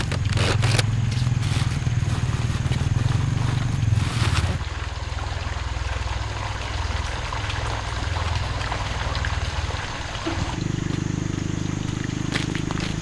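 A motor running steadily with a low hum. Its note drops away about four and a half seconds in and a different, higher hum starts near the end.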